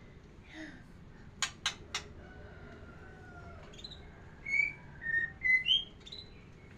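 White-rumped shama singing: three sharp clicking notes about a second and a half in, a faint drawn-out whistle, then a run of short, clear whistled notes.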